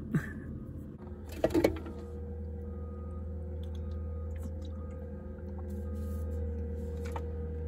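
A steady low mechanical hum with a faint, even whine above it, and a short clatter of knocks about a second and a half in.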